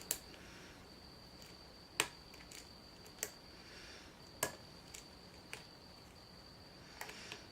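Lock pick and tension wrench working the serrated spool pins of an ACE rekeyable padlock: about six faint, sharp, isolated clicks, spaced a second or so apart, with a small cluster near the end.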